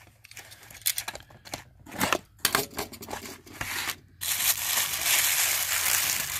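A box cutter slitting the tape on a small cardboard box, heard as a run of sharp clicks and scrapes. About four seconds in, a steady crinkling of tissue paper takes over as the packing is pulled out.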